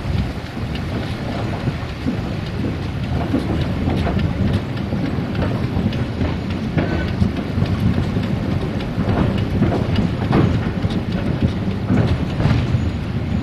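Narrow-gauge steam train running: a steady rumble of the wheels and carriages on the rails, with frequent clicks and knocks.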